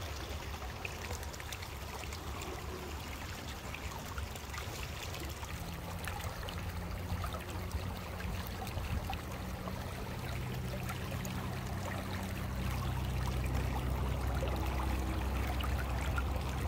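Muddy flash-flood water from heavy rain rushing and churning down a small earthen wadi channel: a steady rush of flowing water, growing a little louder near the end.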